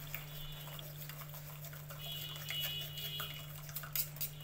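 Metal spoon scraping and clicking against a steel mesh strainer as milk is worked through it into a steel pot, with a faint trickle of liquid. There are two short squeaky scrapes, the clicks come thicker near the end, and a steady low hum runs underneath.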